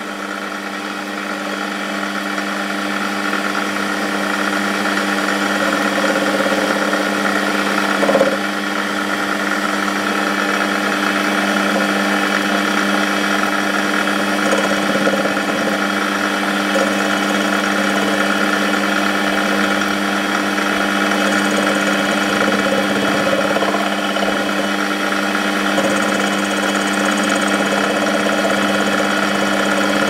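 Small metal lathe running steadily, a low hum with a higher steady whine, while the tool takes a facing cut across a slug of home-cast aluminium. A brief knock about eight seconds in.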